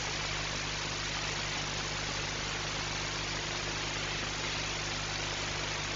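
Steady hiss with a low, constant hum underneath, unchanging throughout with no distinct events.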